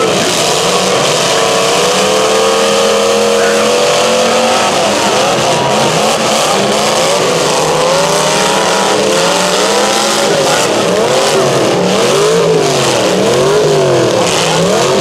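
Several demolition derby cars' engines revving up and down at once, their pitches rising and falling and overlapping, over a loud steady din.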